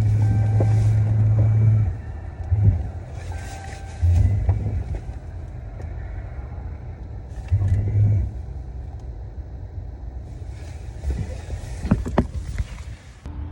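Tow truck winch pulling a car onto a rollback bed, switched on and off in bursts: a long pull at the start, then several short jogs, over the truck's steady idle. A few sharp metal knocks near the end.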